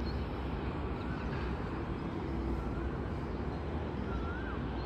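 Steady low rumble of distant road traffic, with a bird's short rising-and-falling call repeated about every second and a half.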